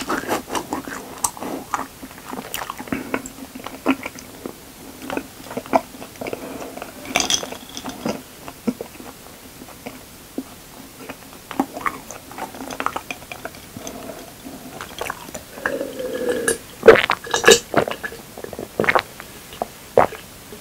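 Close-miked person chewing a mouthful of honeycomb, with wet smacks and irregular mouth clicks, and a louder cluster of clicks about three-quarters of the way through.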